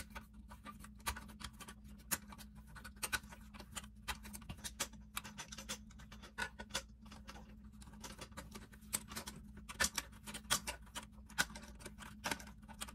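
Fingers fumbling with the bidet seat's mounting nut and bolt under the toilet bowl rim: irregular small clicks and scratches of plastic and metal against porcelain, several a second, over a steady low hum.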